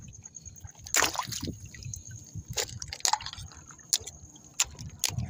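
Shallow water lapping and dripping among shoreline rocks, with small irregular splashes and drips roughly once or twice a second.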